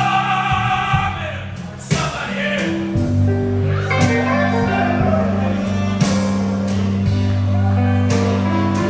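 Live blues band playing: a man sings a held line at the start, then electric guitar carries on over a low bass line.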